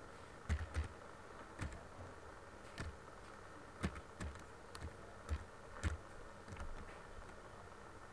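Computer mouse clicking: a dozen or so sharp, irregularly spaced clicks, each with a short dull knock.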